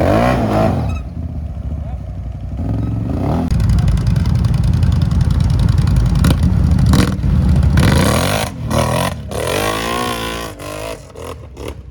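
ATV engine revving hard under load, its pitch rising and falling several times, with a few sharp knocks, before it fades away near the end.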